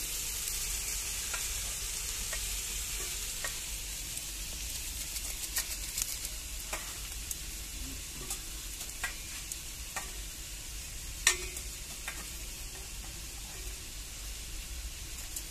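Chicken feet sizzling in a metal wok over a wood fire, a steady frying hiss. A ladle stirs them briefly at the start, and scattered sharp ticks and pops run through, the sharpest about eleven seconds in.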